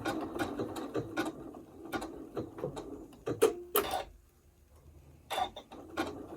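Domestic sewing machine sewing a blanket stitch, its needle mechanism clicking at a steady pace. Past the middle come a couple of louder clicks, then the machine stops for about a second before stitching again.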